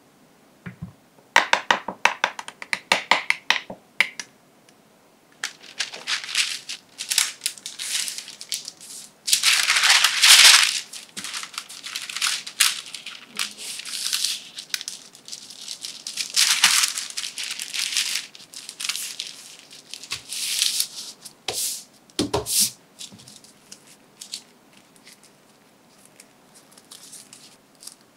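A metal spoon clinks rapidly against a small glass bowl as an oil dressing is stirred, for a few seconds. Then a sheet of baking paper crinkles and rustles as it is folded and creased by hand, with a single dull thump about 22 seconds in.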